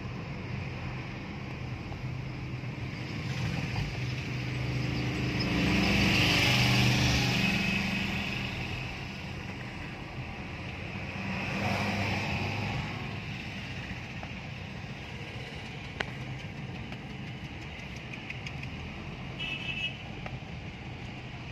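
Road traffic noise from inside a moving car: steady engine and tyre noise that swells louder twice, most around six to seven seconds in. A short horn toot comes near the end.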